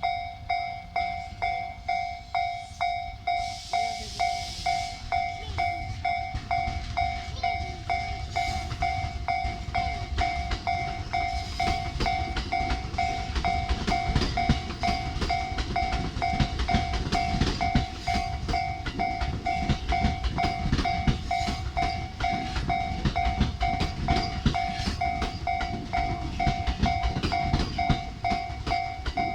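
Japanese level crossing alarm dinging in an even repeating beat, about every two-thirds of a second. From about twelve seconds in, an electric train runs heavily over the crossing, its wheels clicking over the rail joints under the bell.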